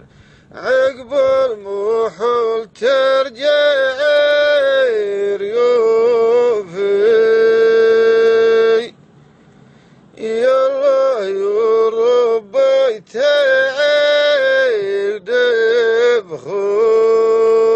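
A man singing a slow, drawn-out melody in long held notes with bending pitch, with no instruments heard, and a break of about a second near the middle.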